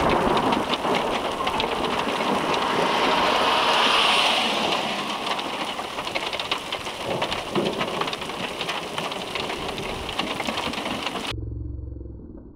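Heavy thunderstorm rain pelting down, with thunder. It is loudest about four seconds in, then eases, and cuts off abruptly near the end.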